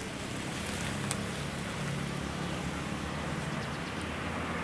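A silver SUV pulling away and driving off along the road: a steady low engine hum with tyre and traffic noise.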